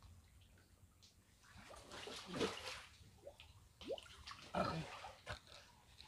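Water sloshing and splashing as people wade and grope with their hands in chest-deep muddy water, in two louder bouts, one about two seconds in and one about four seconds in.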